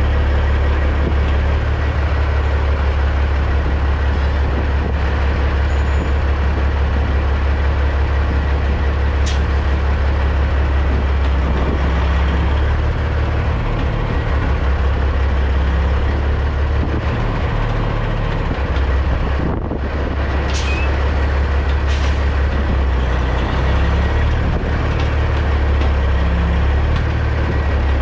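Caterpillar C15 diesel of a Peterbilt 379 semi running at a steady low idle while the rig backs up slowly, with a few brief sharp clicks along the way.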